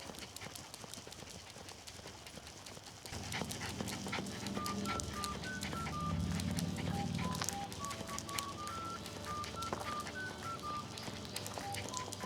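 Background music: after about three seconds of scattered sharp clicks with no melody, a new track begins with a low hum and then a simple melody of short, beep-like notes.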